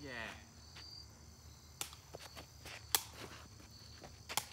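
Insects chirping steadily at a high pitch, with three sharp clicks spread through it.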